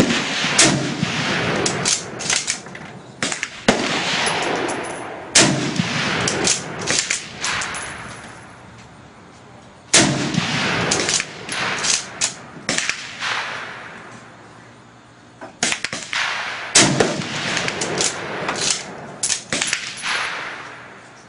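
Rifle shots at a shooting range: four especially loud reports, near the start, about five seconds in, about ten seconds in and near seventeen seconds, each trailing off in a long echo. Many sharper, quicker shots come in between.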